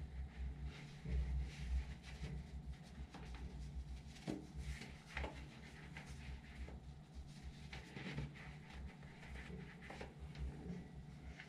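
Faint rustling and scattered soft taps and scuffs in a small tiled room, from a person handling socks and shifting their feet on the tile floor.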